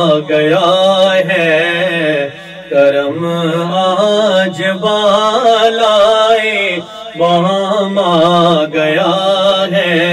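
A man singing an Urdu naat, drawing out long held notes that waver in pitch, with short breaths between phrases.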